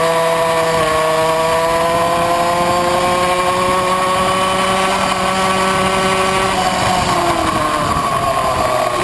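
Tuned 70cc two-stroke engine of a Puch Maxi racing moped at high revs, heard on board. Its pitch climbs slowly along the straight, then falls near the end as the moped slows for a corner.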